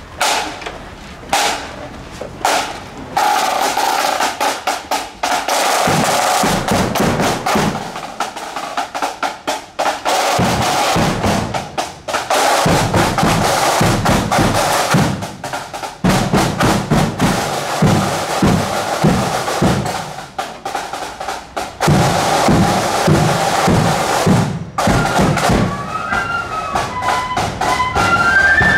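Marching band side drums beating a fast parade cadence with rolls, pausing briefly twice. Near the end the flutes come in with a melody.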